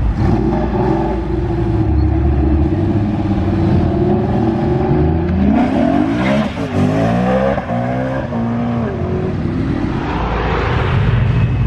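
Sports car engines pulling away under acceleration. A steady engine note gives way about halfway through to sharp rising and falling sweeps in pitch as the revs climb and drop through gear changes, with a short burst of hiss near the end.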